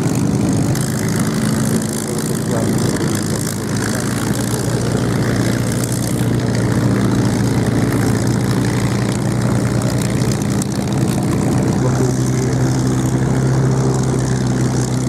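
Piston-engined warbird propeller engines droning steadily. About twelve seconds in the engine tone grows stronger and steadier as a Republic P-47D Thunderbolt flies overhead.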